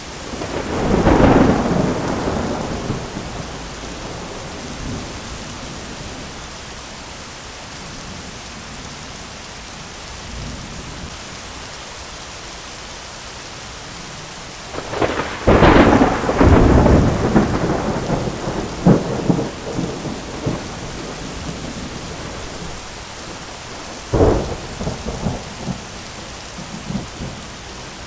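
Thunderstorm: steady rain with rolls of thunder. A rumble comes about a second in, a long, loud crackling peal runs from about halfway to two-thirds through, and a sharper crack near the end is followed by lighter rumbling.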